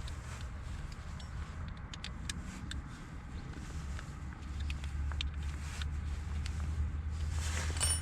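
Scattered small clicks and taps of parts being handled while the cleaned blower fan motor is reassembled, over a steady low rumble that grows a little stronger about halfway through.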